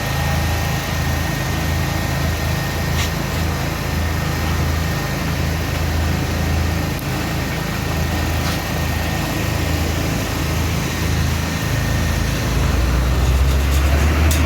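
Engine running steadily at idle. A deeper, louder engine sound comes in near the end.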